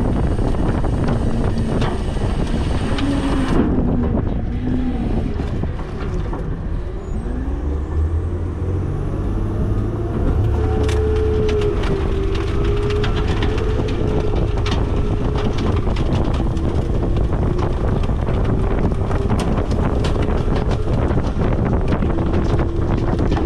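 Autocar/Heil front-loader garbage truck's engine running, then revving up from about seven seconds in and holding high revs to power the hydraulics, with scattered metal knocks and clanks from the working body.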